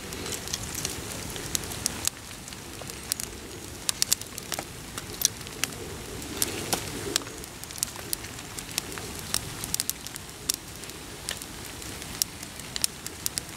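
Small campfire of wet hardwood sticks crackling with many irregular sharp pops as it slowly catches. A bird calls in the background.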